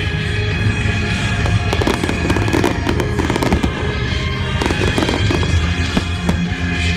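Aerial fireworks bursting and crackling, a rapid run of sharp pops and bangs throughout, over loud steady music.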